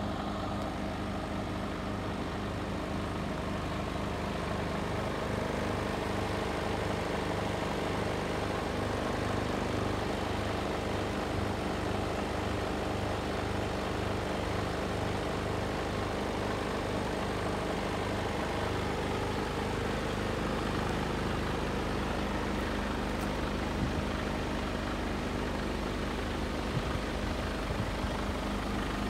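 Mercedes Actros 2545 tractor unit's 450 bhp Euro 6 straight-six diesel idling steadily. A few faint knocks come near the end.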